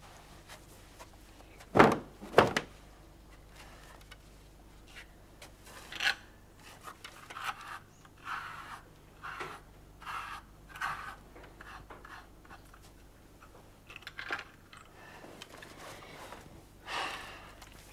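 A boy moving about a small room and handling things. Two sharp knocks come close together about two seconds in, followed by soft, uneven scuffs and rustles about a second apart.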